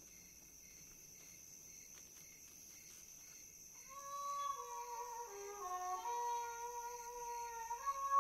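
Faint quiet film soundtrack for about four seconds. Then soft music comes in: sustained chords, several held tones at once, moving slowly step by step and growing a little louder.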